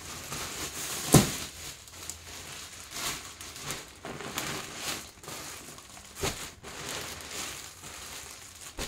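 Packaging crinkling and rustling as new pillows are unwrapped and handled, with a sharp knock about a second in.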